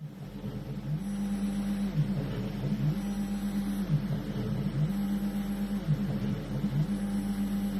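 Stepper motors of a homemade CNC milling machine driving an axis, a steady motor whine whose pitch keeps dropping and rising again about once a second as the motion slows and speeds up.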